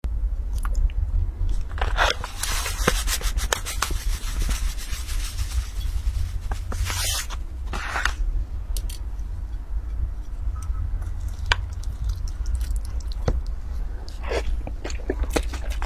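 Rubbing and scraping handling sounds with a few sharp clicks over a steady low hum, from a metal spoon and a ceramic bowl of sugar-topped glutinous rice being handled before eating.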